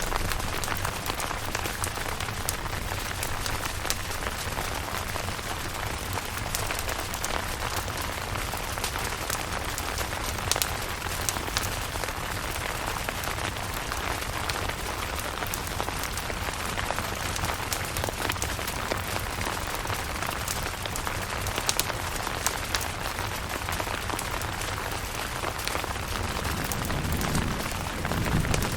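Steady rain falling on a camping tent, with scattered sharper drop ticks. A low rumble swells up near the end.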